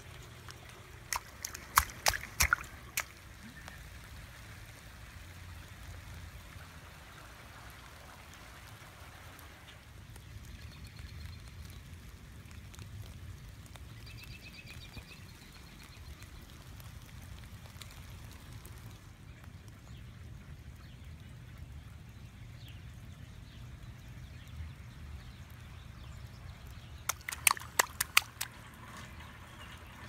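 Steady spring rain falling and dripping, with a few faint short calls partway through. Two clusters of sharp taps come about two seconds in and again near the end, and these are the loudest sounds.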